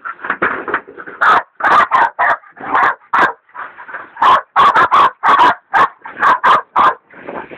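Hog dogs baying a wild hog: loud, rapid, repeated barks, about two to three a second, in a near-continuous string with short pauses.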